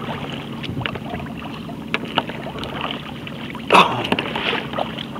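Choppy water splashing and slapping against a Wilderness Systems Tsunami 165 sea kayak's hull while it is paddled, with one louder slap a little under four seconds in. The chop is clapotis kicked up by passing motorboat wakes rather than wind.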